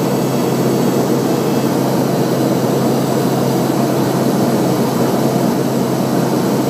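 Steady, loud cabin drone inside a Piper Meridian's cockpit on approach: its single Pratt & Whitney PT6A turboprop and propeller running with airflow noise, a low hum underneath.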